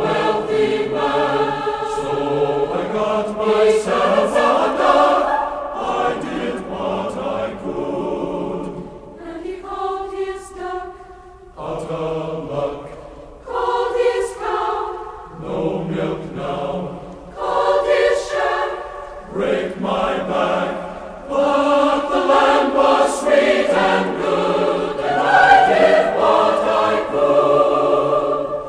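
Music: a choir singing, several voices in harmony, with a softer passage about ten seconds in.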